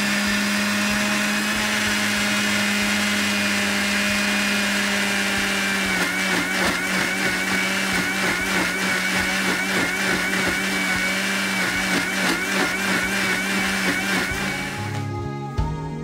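Electric countertop blender running at full speed, blending mango, yoghurt and ice water into a lassi. About six seconds in, its steady note starts to waver with a regular rattle as the contents churn, and it stops near the end.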